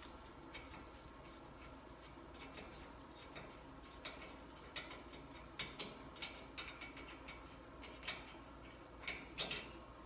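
Faint, irregular light metallic clicks and ticks from tools and parts being handled at a truck's front wheel hub, coming more often in the second half.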